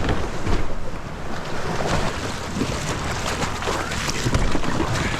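Ocean waves and surf with wind buffeting the microphone, a loud, unsteady rush with irregular splashes.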